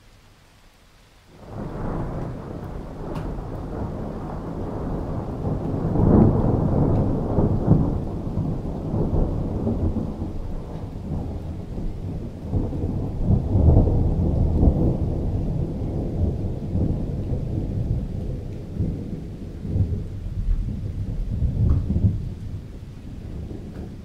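A long peal of rolling thunder: it breaks in suddenly about a second in, rumbles low and deep through several swelling surges, and eases off near the end.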